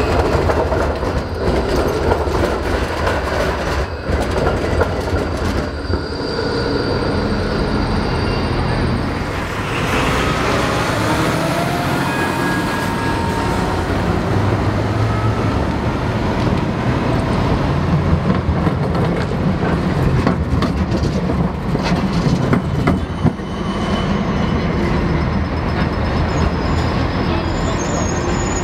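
Trams rolling through a busy street intersection: steel wheels clacking over the track crossings with brief wheel squeal, mixed with road traffic, including a heavy truck passing about ten seconds in.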